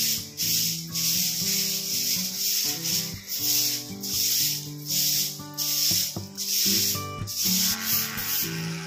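Soft grass broom sweeping a bare concrete floor: a quick, even run of swishing strokes, about two a second, that stops near the end.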